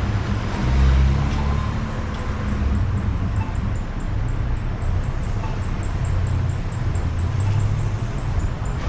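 Low, steady rumble of a motor vehicle or road traffic. From about a third of the way in, a faint high ticking repeats several times a second.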